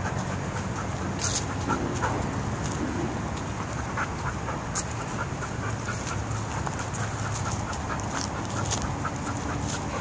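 Footsteps of a person and dog walking over pavement and dry leaves: scattered short clicks and rustles over a steady low outdoor hum.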